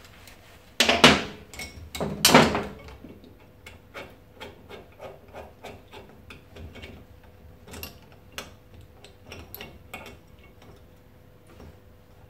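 Hand tools working on a Hitachi air suspension compressor being dismantled: two loud metal knocks about a second and two seconds in, then a run of light clicks roughly twice a second.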